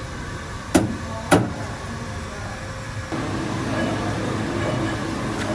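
Factory machinery: two sharp knocks about half a second apart, then about three seconds in a machine starts up with a louder steady hum.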